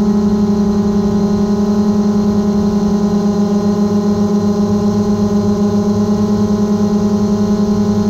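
Quadcopter drone's propellers humming at a steady pitch with overtones, pulsing quickly and slightly.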